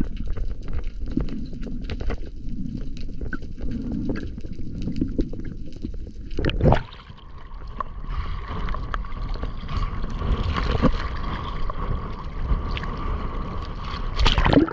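Water sloshing and gurgling around the camera, with small clicks. About halfway through, a sharp knock marks a change to a steady high whine over a hiss.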